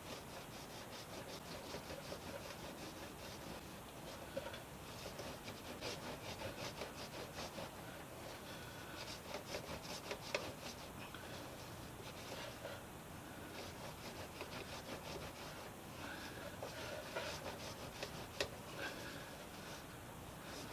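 Motorcycle drive chain being scrubbed by hand: quick back-and-forth scraping strokes in runs, with short pauses between them.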